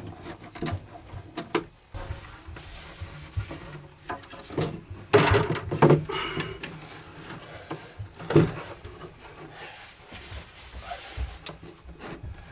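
Handling noises in a wooden radio cabinet: the speaker's four mounting screws being tightened, with small clicks and scraping. Several louder knocks against the wood come about five, six and eight seconds in as hands work inside the cabinet.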